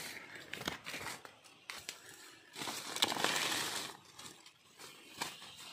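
Footsteps crunching through dry leaf litter and brushing against undergrowth: a string of separate crackles, with a longer, louder rustle about halfway through.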